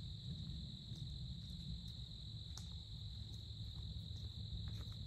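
Night insects trilling in chorus: a steady, unbroken high-pitched trill, faint.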